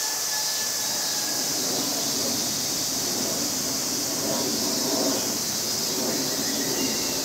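Steady hissing background noise, strongest high up, with a faint lower murmur and a couple of brief thin tones.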